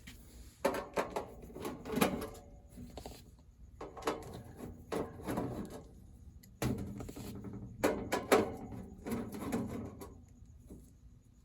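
Handling noise: a series of knocks, clunks and scraping in three bursts, with a sharp knock about six and a half seconds in.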